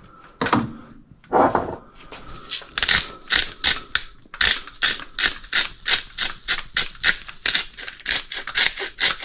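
Pepper grinder being twisted by hand, giving a steady run of ratcheting clicks, about four or five a second, from about two and a half seconds in. Before that there is a knock and a short scrape.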